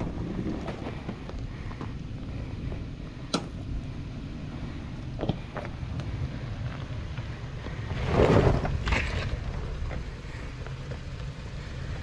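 First-generation Toyota Sequoia's 4.7-litre V8 running low and slow as the SUV crawls over a rocky dirt mound, its tyres crunching gravel with a few sharp knocks of stones. A louder stretch of crunching and rushing noise comes about eight seconds in.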